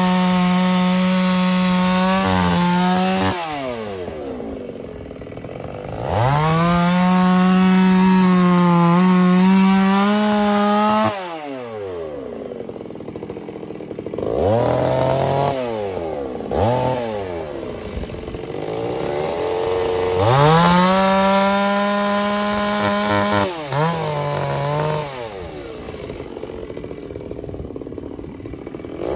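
Two-stroke chainsaw bucking dry elm logs: three long cuts at full throttle, each ending with the engine winding down to idle. Short blips of throttle come between the cuts.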